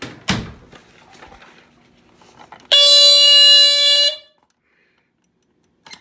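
Amway E-8375 smoke alarm sounding on test: one loud, steady, horn-like blast lasting about a second and a half, after a sharp knock near the start.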